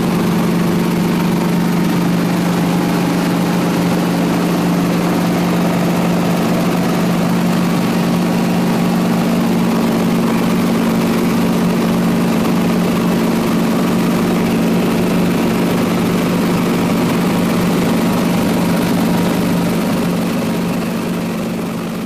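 Small aircraft's engine and propeller drone heard inside the cabin, a loud, steady low hum that starts to fade out near the end.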